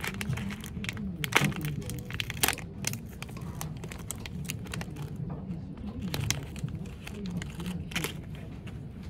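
Crinkling and crackling handling noise with many sharp clicks, over a steady low background murmur.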